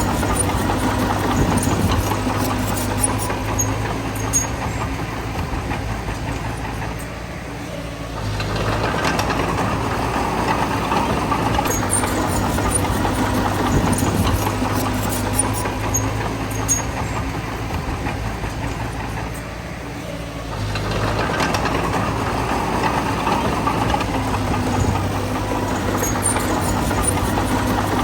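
Bulldozer's diesel engine running under load as it pushes soil. It eases off twice, then pulls hard again each time.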